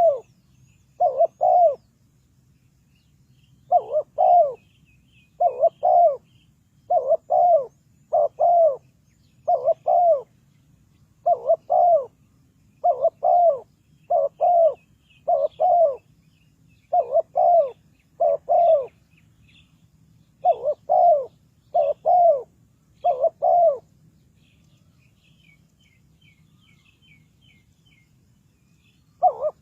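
Spotted dove cooing: a rhythmic run of paired coos, about one pair every second and a half. The coos stop about three-quarters of the way through, and one more pair comes at the very end. Fainter high chirps of small birds sound above them.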